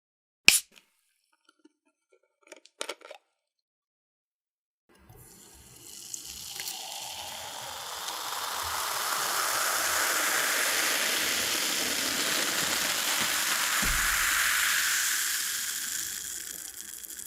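A sharp click and a few small clicks, then carbonated cola pouring out for about twelve seconds, its fizzing pour swelling and then fading.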